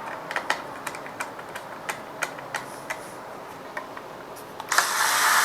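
About a dozen light, irregular clicks of screws and small parts being handled, then near the end a cordless screwdriver starts up and runs with a steady whir, driving in screws.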